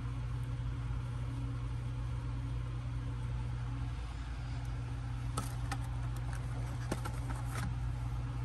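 Steady low hum, with a handful of small, sharp clicks and taps about two-thirds of the way in.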